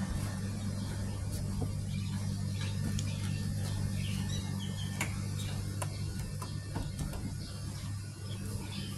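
Steady low machine hum with scattered light clicks and taps.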